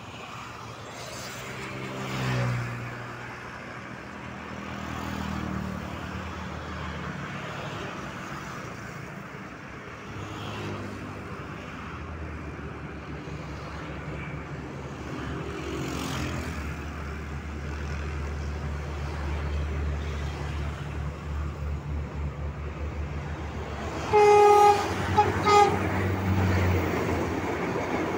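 Prambanan Ekspres diesel multiple unit approaching with a low engine drone that builds as it nears. Near the end its horn sounds one longer blast and then two short ones as it passes beneath.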